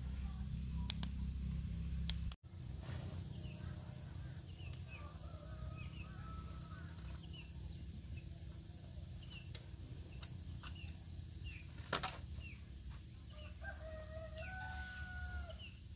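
Birds chirping in many short rising peeps, with a few longer held calls near the end, over a steady high-pitched drone and a low rumble, plus a couple of sharp clicks.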